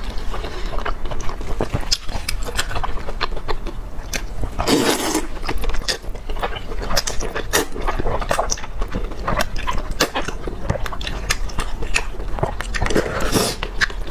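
Close-up eating sounds of wide glass noodles in spicy broth: wet chewing and mouth smacks, with longer slurps about five seconds in and again near the end.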